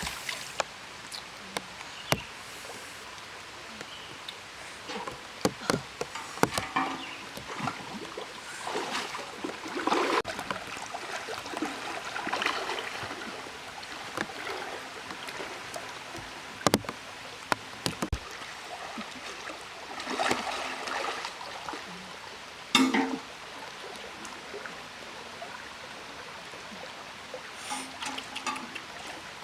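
River water running steadily, with irregular bursts of noise and a few sharp knocks.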